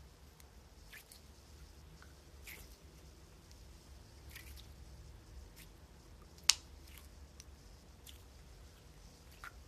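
Faint, scattered crackling and squishing of a soft material being handled, with one sharp click about six and a half seconds in.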